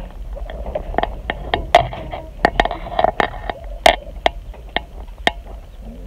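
Irregular sharp clicks and taps on a wire-mesh rabbit hutch, two or three a second, over a low rumble of handling noise on the microphone.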